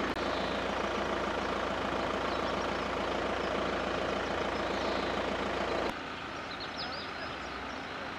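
Steady hum of an idling engine over outdoor noise. About six seconds in it cuts away to quieter outdoor ambience with a few short high chirps.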